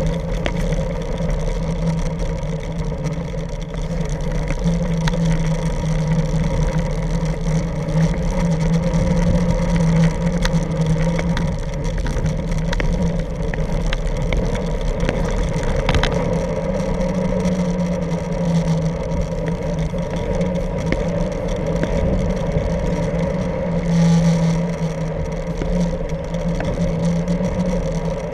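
Kick scooter wheels rolling over street paving, a steady rumbling drone with a few sharp clicks from bumps.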